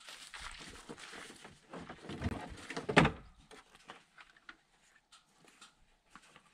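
Rustling and handling noise close by, then one sharp knock about three seconds in, followed by faint scattered ticks.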